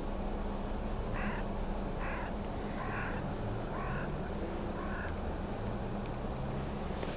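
A crow cawing five times, about a second apart, over a steady low background hum.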